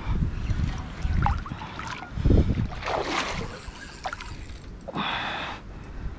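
A hooked barramundi thrashing and splashing at the water's surface while being fought on a spinning rod, with several low thumps in the first couple of seconds and a splash near the end.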